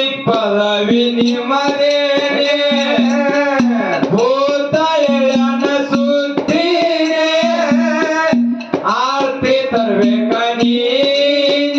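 A man singing a Kannada devotional folk song with long held, wavering notes, accompanied by a rope-tuned barrel drum (dholak) beating a steady rhythm.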